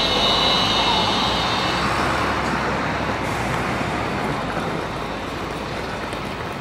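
Düwag-type light-rail tram pulling away and receding: a high electric whine fades out in the first two seconds, leaving the rumble of its wheels on the rails, which slowly grows quieter.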